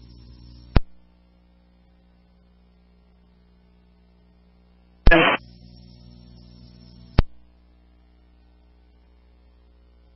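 Two-way radio channel on a scanner. An open carrier with a steady hum ends in a squelch click just under a second in. About five seconds in another radio keys up with a short loud burst of noise, holds an empty hummy carrier for about two seconds and drops off with another squelch click.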